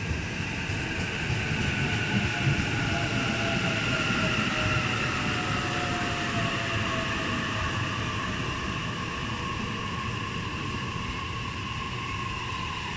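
JR East suburban electric train running past at the platform, its motors whining in several tones that fall slowly in pitch over a low rumble of wheels as it slows down.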